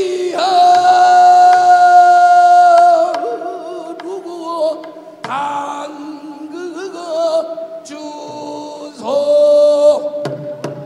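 A man singing pansori into a microphone: long held notes that bend and waver, sung in several phrases with short breaks. The loudest is a long sustained note near the start.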